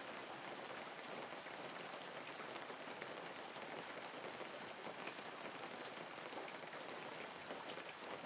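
Steady light rain falling in a rainforest, an even hiss with scattered individual drops ticking through it.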